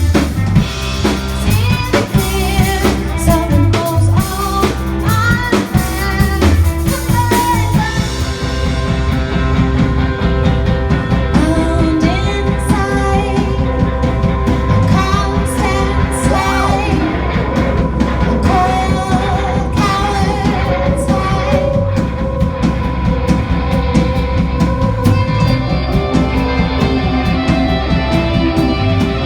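Live band playing a song: drum kit, guitar and bass under a singing voice. The cymbals are heavy for the first eight seconds or so, then drop back.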